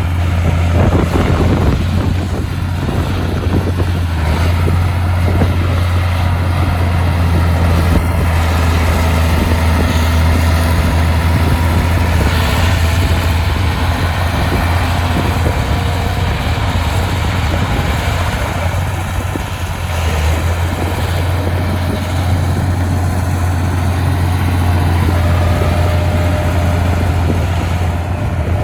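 Diesel engine of a heavy earthmoving machine running steadily, with a strong, even low drone.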